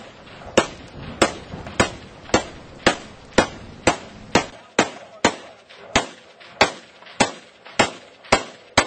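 Rifle fired in steady single shots, about two a second, some sixteen rounds in a row.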